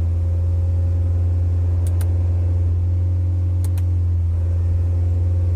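Honda Brio's petrol engine held at about 3000 RPM with the AC compressor engaged, a steady hum heard inside the cabin, with two brief double clicks. The compressor makes this noise only at 2000–3000 RPM, a fault for which it is to be replaced.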